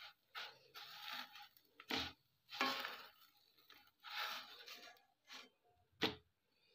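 A thin spring roll wrapper being peeled off a nonstick pan by hand, with papery rustling and scraping in several short spells. Two sharp knocks come about two seconds in and near the end.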